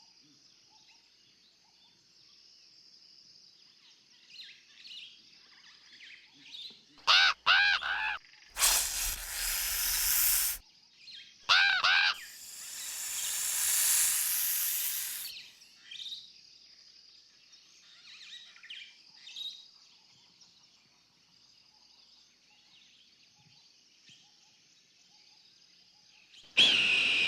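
Birds chirping faintly over a thin high ambience, broken about seven seconds in by a few loud, pitched calls that sweep up and down, and two bursts of loud rushing noise, the second swelling and fading over a few seconds. Another loud burst comes right at the end.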